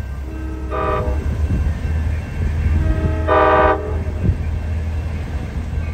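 Amtrak Pacific Surfliner cab car's chord horn sounding two short blasts, about two and a half seconds apart, the second a little longer, over the train's steady low rumble.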